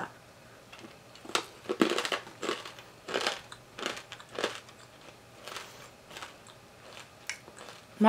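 Chewing and crunching on a crunchy snack of sriracha cashew clusters and large toasted corn kernels, a run of irregular crunches that grow fainter in the second half.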